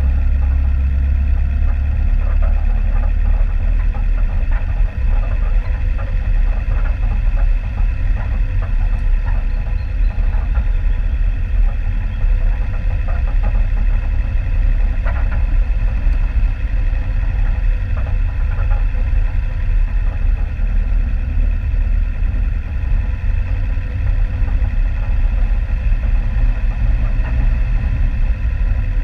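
Off-road vehicle's engine running steadily at low revs as it drives slowly along a rocky dirt track, with scattered knocks and rattles from the rough ground.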